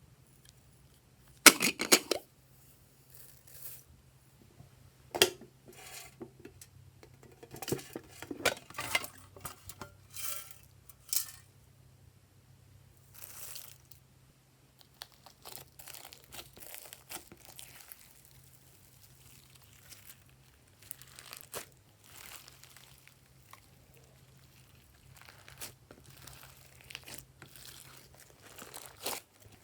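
Glossy slime being worked by hand, giving irregular sticky crackles and pops. The crackles are loudest and densest in the first dozen seconds and softer and sparser after.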